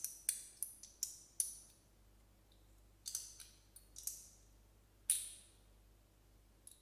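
Magnetic sliding fidget toy clicking as its pieces slide and snap together: sharp clicks in quick clusters, about five in the first second and a half, several more around three to four seconds in, and one louder click about five seconds in.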